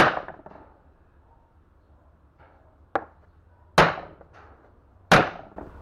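Sharp knocks with short ringing tails as a seized hydraulic valve lifter is struck to try to take it apart. There are four strikes over about five seconds, and the second is lighter.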